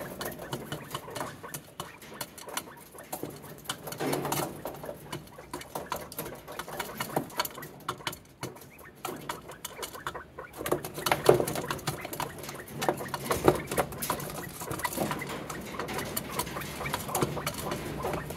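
Quail beaks pecking at black soldier fly larvae in a hard plastic feeder: an irregular, rapid patter of sharp taps and clicks.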